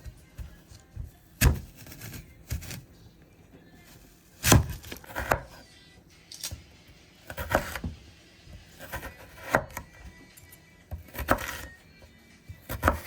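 Kitchen prep work: about ten sharp knocks and clacks at irregular intervals, roughly one a second, as ingredients are handled and cut on a board.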